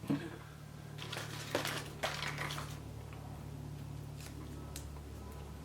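Small plastic toys and surprise-egg packaging being handled: crinkly rustling in short stretches, mostly in the first half, with a few light clicks, over a steady low hum.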